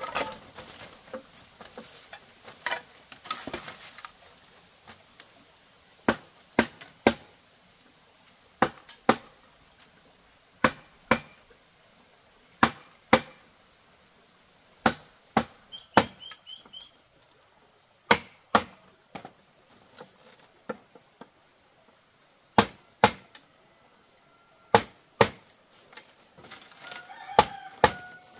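Sharp chopping knocks of a hand tool striking bamboo, mostly in pairs, with a pair about every two seconds. A chicken calls near the end.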